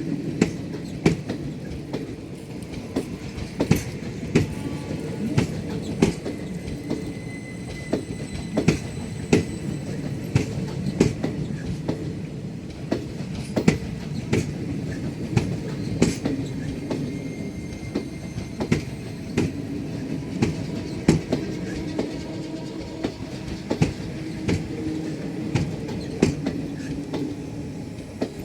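Passenger train coach wheels running over the track: a steady rumble with irregular sharp clicks and knocks from rail joints, roughly a second apart, and a faint high wheel squeal at times.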